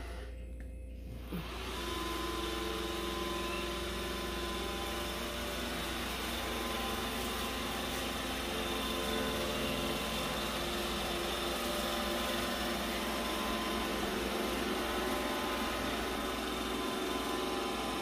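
iRobot Roomba i7 robot vacuum running on a hardwood floor: a steady whir of its suction motor and brushes with a few steady whining tones, louder from about a second and a half in.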